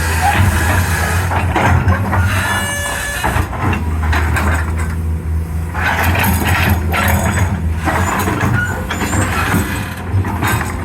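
Excavator's diesel engine running steadily under load, with irregular metallic clanks and scraping from the working machine and a brief squeal about two seconds in.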